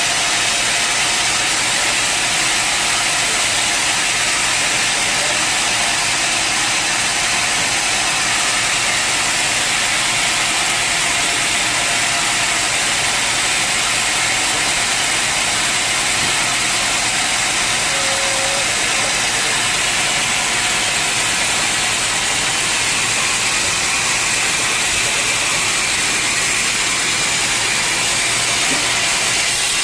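Sawmill machinery running steadily: a constant, even noise that holds level with no breaks or strokes.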